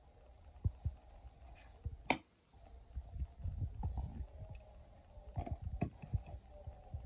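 Sandwich-making handling sounds: soft low thumps and light taps as a spoon spreads a mayonnaise vegetable filling on bread slices on a china plate and a slice of bread is laid on top by hand. A single sharp click comes about two seconds in.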